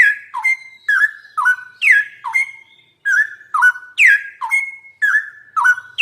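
Straw-headed bulbul (cucak rowo) singing a run of loud, clear whistled notes, about two a second, each sliding down in pitch. There is a short break about two and a half seconds in.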